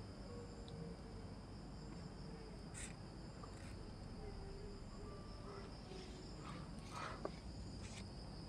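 Crickets chirping steadily and faintly in the background, with a few soft clicks.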